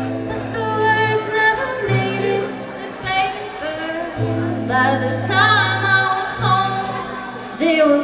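A live band playing a rock song, with sung vocals over held bass notes.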